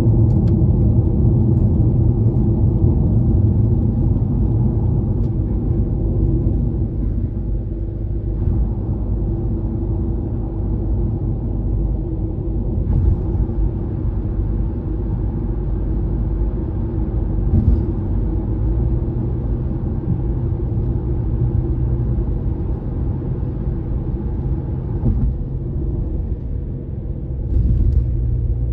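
Car road noise heard from inside the cabin at expressway speed: a steady low rumble of tyres on the road surface, with a few brief knocks as the tyres cross bridge expansion joints.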